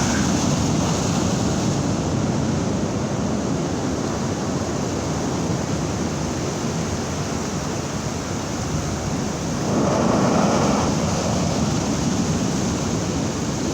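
Heavy sea surf: big waves breaking and rushing in a steady roar of water, with a louder surge of a wave crashing about ten seconds in.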